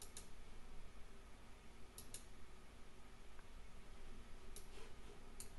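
Computer mouse clicking: two quick clicks at the start, two more about two seconds in, then single clicks near the end.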